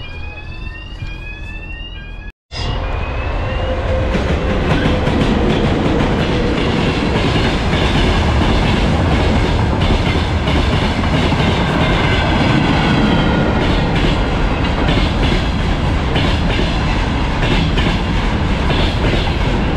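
Level-crossing warning alarm sounding as a string of short rising electronic tones. After a sudden break about two seconds in, a long train passes close by, running steadily with a loud rumble and frequent wheel clacks.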